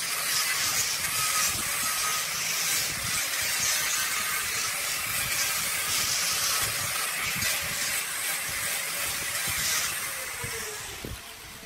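Angle grinder with a sanding disc running against a spinning wooden jar on a lathe: a steady whirring hiss. Near the end it fades and its pitch falls as the grinder winds down.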